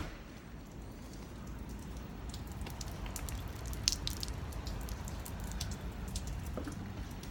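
Light rain falling outside, with scattered drops and drips ticking on hard surfaces; it grows louder a second or two in, with one sharper drip near the middle.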